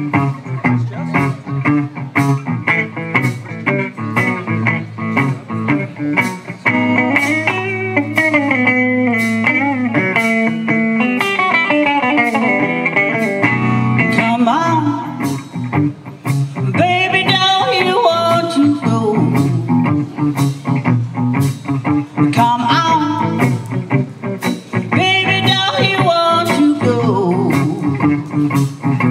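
Live blues-rock band playing: electric guitars, bass and drum kit on a steady beat, with a woman singing lead over it.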